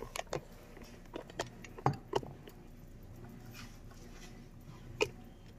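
Light clicks and taps from handling a boxed rice cooker and its packaging, scattered irregularly, the loudest about two seconds in.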